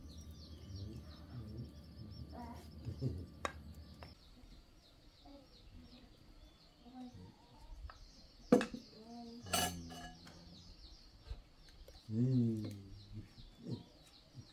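Bowls set down on a wooden table: a sharp knock about eight and a half seconds in, then a ringing clink of a stainless steel bowl a second later, over steady bird chirping. A low hum stops about four seconds in, and a short voice is heard near the end.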